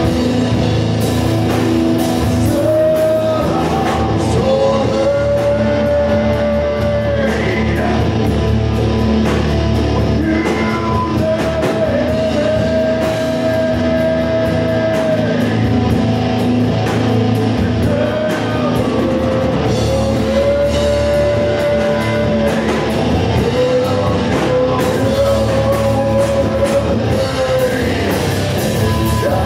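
Live rock band playing: distorted electric guitar, bass and drum kit, with a singer's vocals and long held notes that recur every few seconds.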